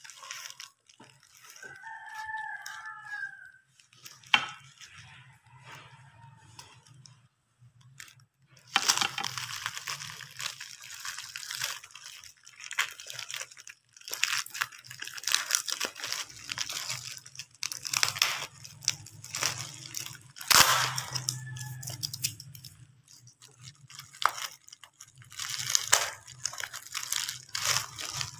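Plastic bubble wrap and packing tape crinkling and tearing as they are pulled off a laptop charger, in irregular bursts, sparse at first and dense from about nine seconds in.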